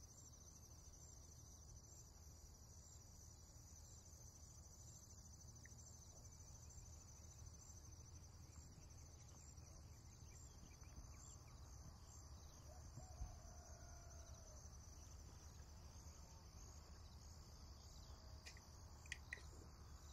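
Near silence: room tone with a faint steady high hiss and a few faint soft ticks.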